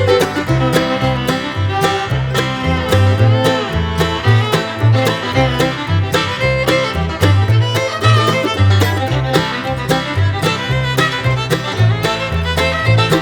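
Upbeat bluegrass-style background music with fiddle, banjo and guitar over a bouncing bass line.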